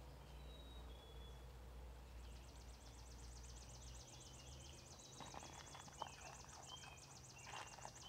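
Faint eating noises from a raccoon feeding from a plastic tub: small crunches and knocks in the second half, the loudest about six seconds in. Behind it, birds chirp and a high, fast trill keeps going from about two seconds in.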